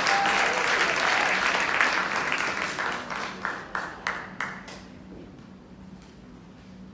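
Audience applause with a brief cheer at the start. It thins to a few scattered claps about three to four and a half seconds in, then dies away to quiet with a low steady hum.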